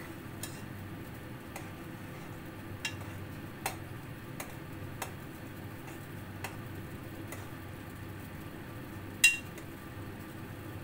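Scattered light clicks and taps of a knife and utensils on the kitchen counter, irregular, with one sharper metallic clink about nine seconds in, over a steady low background rumble.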